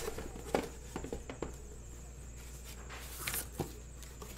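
Handling noise from a cardboard shipping case and the sealed card boxes being pulled out of it: a scatter of light knocks, scrapes and rustles, bunched in the first second and a half with a couple more later.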